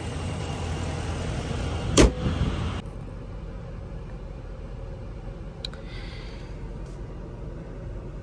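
A single loud slam about two seconds in as a panel of a Dodge Durango SUV is shut, with a brief metallic ring, followed by a steady low rumble.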